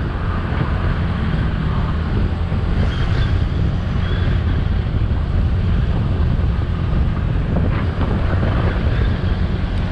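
Wind buffeting the microphone over the steady drone of a motorcycle's engine and tyres, riding at a constant road speed.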